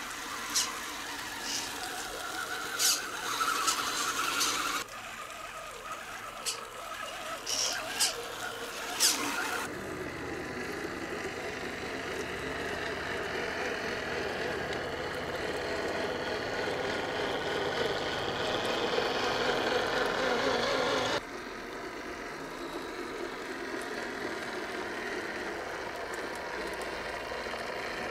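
Battery-powered radio-controlled scale off-road trucks driving through mud and water, their electric motors and gearboxes whining and swelling with the throttle. Several sharp clicks in the first ten seconds, and the sound changes abruptly a few times.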